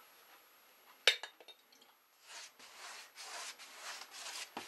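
One sharp glass clink about a second in, then soft, repeated scrubbing strokes of a wide paintbrush wet with India ink wash.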